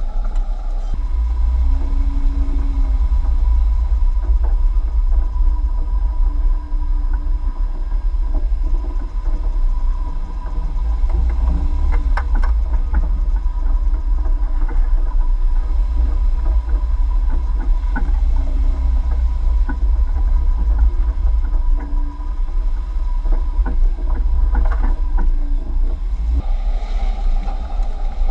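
Jeep driving over a bumpy dirt off-road trail, picked up by a camera mounted on the vehicle: a steady heavy low rumble, with a few sharp knocks and rattles as it goes over bumps.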